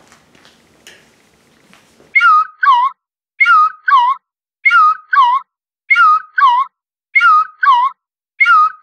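Faint room sound for about two seconds, then a high two-note whistle-like chirp repeated six times, one pair about every 1.2 seconds, each identical, with dead silence between them.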